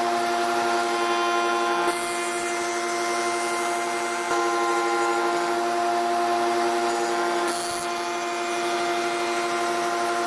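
Table-mounted router with a 45-degree chamfering bit running with a steady whine while chamfering the edges of stained wood pieces. Its note and loudness shift slightly a few times.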